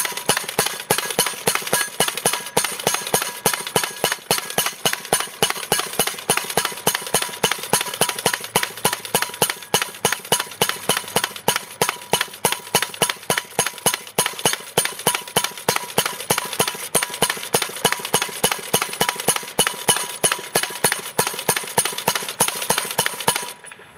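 Powered post driver hammering a square metal post into the ground: a steady, rapid run of sharp metallic blows, about four a second, that stops abruptly near the end.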